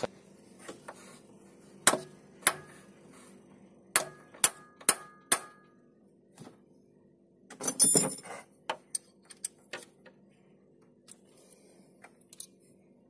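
Hammer striking a Torx T30 bit to drive it into a bolt head whose flats are stripped, so that the bolt can be unscrewed: sharp metallic blows with a high ring. A few single blows about half a second to a second apart, a quick cluster about eight seconds in, then lighter clicks.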